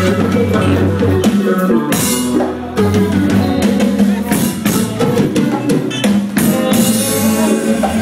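Live band playing, with drum kit hits over a steady bass line.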